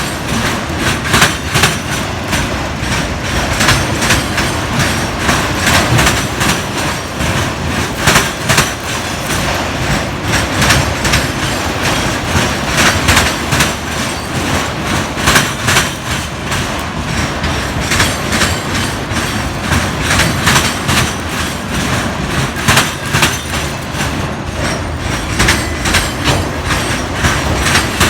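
A train's cars rolling past, their wheels clacking over rail joints in an irregular run of loud clacks over a steady rumble.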